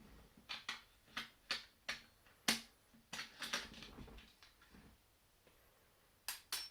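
A string of sharp, short clicks made as a home-made 'zap' sound effect, spaced out at first, then a quick run of clicks near the end.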